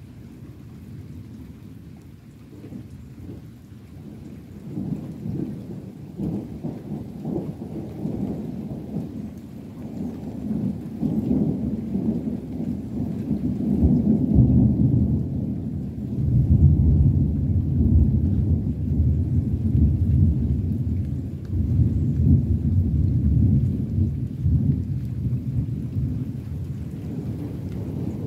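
Thunder: one long rolling rumble that builds over the first few seconds, is loudest in the middle, then eases off near the end.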